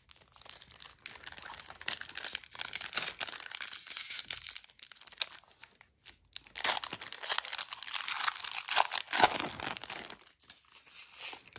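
Pokémon card booster pack wrapper crinkling and tearing as it is opened, in two long stretches with a short pause about six seconds in.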